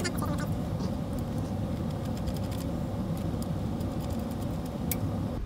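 Steady low rumble of background room noise, with a few faint clicks from the aluminium frame and its hardware being handled, and one sharper click near the end.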